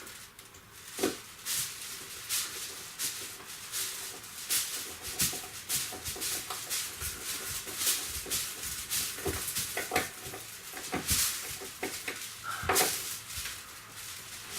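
Hand driving of a small screw to fasten a strap over wiring: irregular clicks, taps and scrapes of a hand screwdriver and metal strap.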